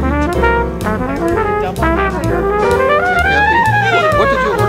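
Jazzy background music with brass over a steady pulsing bass line; a melody climbs and falls back in the second half.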